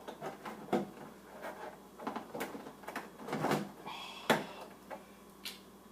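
Plastic back housing of an LG TV being pried and handled: irregular clicks, knocks and scraping as the stuck panel is worked loose, with sharp clicks about a second in and again around four seconds in.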